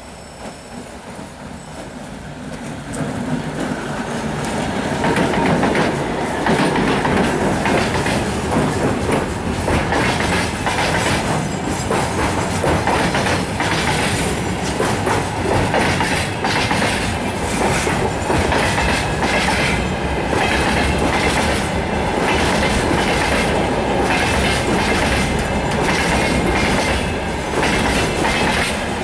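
DM62 diesel locomotive drawing near and passing, growing louder over the first five seconds. Then a freight train's wagons roll past close by: a steady loud rumble with rapid clickety-clack of wheels over the rail joints.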